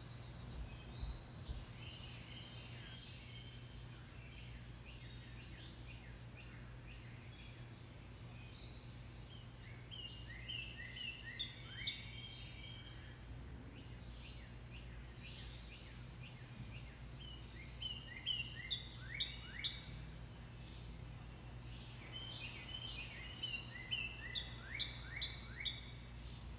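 Songbirds singing in several bouts of quick, downward-slurred chirps a few seconds apart, over a steady low hum.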